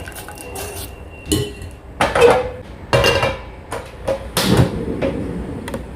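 Kitchen utensils clattering against metal cookware: a series of irregular knocks and scrapes, some ringing briefly.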